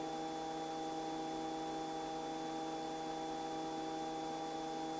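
Steady, faint hum of several fixed tones with light hiss on the R44 helicopter's headset intercom feed, heard between transmissions.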